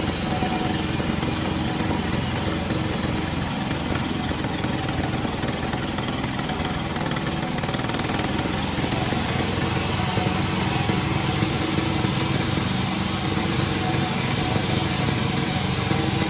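Sawmill machinery running with a steady, unbroken drone.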